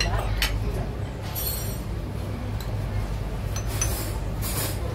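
Cutlery and dishes clinking at a dining table: a few short clinks, one ringing briefly about a second and a half in, over a steady low background hum.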